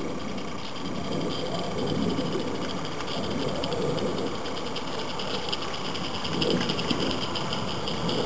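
Accucraft Edrig live-steam garden locomotive chuffing with a fast, even beat and clattering along the track, getting louder as it approaches.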